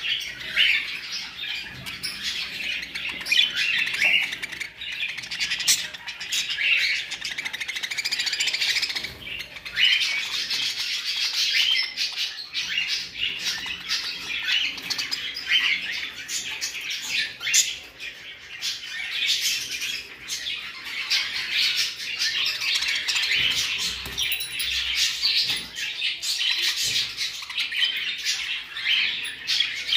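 A flock of caged budgerigars chattering: a dense, steady warble of many overlapping chirps and squawks.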